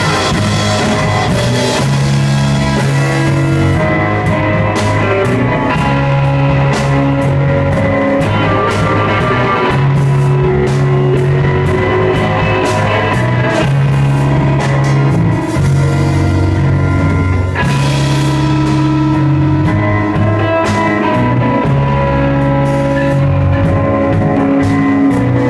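Rock band playing live and loud: guitars and bass holding long, ringing notes over drums, with repeated cymbal strikes.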